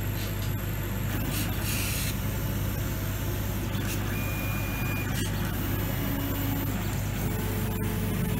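Chinese CO2 laser cutter at work: a steady mechanical hum and rush, with several brief whines of differing pitch as the stepper motors drive the laser head along the cutting lines.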